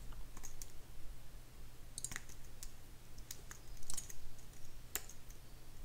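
Scattered, irregular clicks of a computer mouse and keyboard being worked, over a faint steady low hum.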